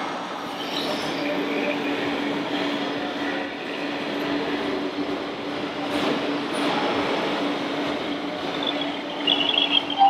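Radio-controlled model trucks running: a steady mechanical whirr over a constant low hum. A tune comes in near the end.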